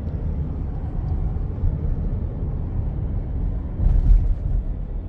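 Car driving at road speed, heard from inside the cabin: a steady low rumble of tyres and engine, with a brief louder bump about four seconds in.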